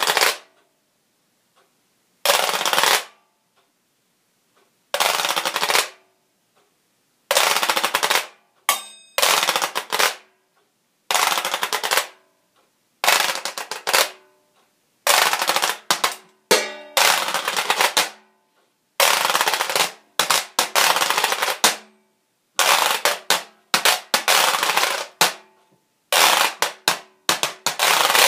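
Homemade washboard scraped in rhythmic, rasping strokes, each under a second. The strokes come slowly at first, about every two and a half seconds, then quicken into denser patterns, with a quick run of short clicks about nine seconds in.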